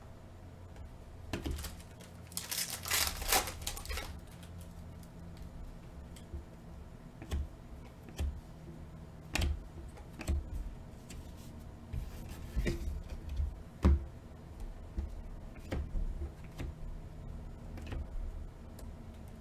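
Glossy Panini Mosaic trading cards being flipped one by one off a stack by hand, making irregular light clicks and slides, with a longer rustle of cards scraping together about two to four seconds in.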